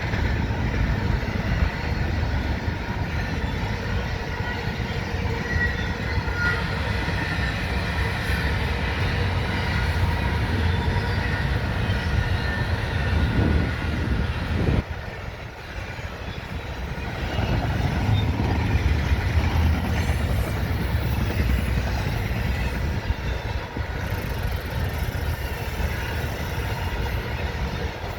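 Freight train of empty intermodal well cars rolling past: a steady rumble of steel wheels on rail, with a thin high wheel squeal in the first half. The level dips briefly about halfway through, then builds again.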